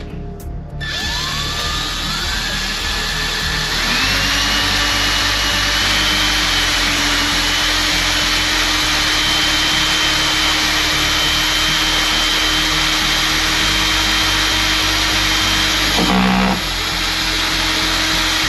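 Electric drill boring a hole for a mounting screw. Its motor whine rises as it spins up over the first few seconds, then runs at a steady pitch, with a short break about two seconds before the end before it picks up again.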